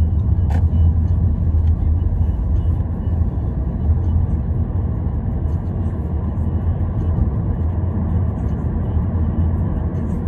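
Steady low road and engine rumble inside the cabin of a moving car, with one short click about half a second in.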